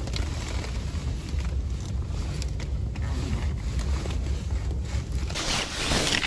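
Wind buffeting the microphone in a storm: a steady low rumble, with a louder rushing hiss coming in about five seconds in.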